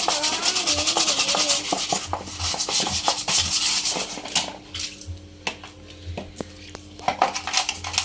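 Scrubbing with a brush inside a dirty, rusted washing machine, rapid rubbing strokes that stop about halfway through, followed by a few scattered knocks before the scrubbing picks up again near the end.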